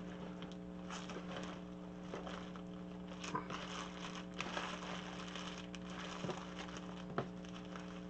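Rustling and light clicks of plastic storage boxes and packaging being handled and rummaged through, over a steady background hum.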